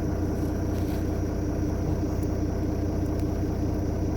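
Volvo vehicle's engine idling steadily, a constant low rumble with a steady hum.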